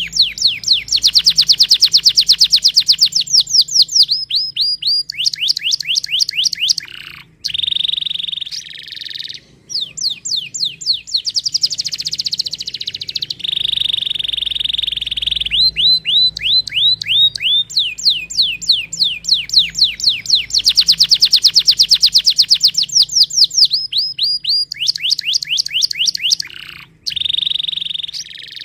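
Domestic canary singing a loud song of long, fast trills made of rapidly repeated down-slurred notes, broken now and then by short held steady notes.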